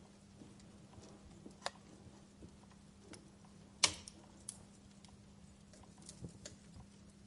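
Wood fire crackling softly with scattered sharp pops and snaps, the loudest snap about four seconds in, over a faint steady low hum.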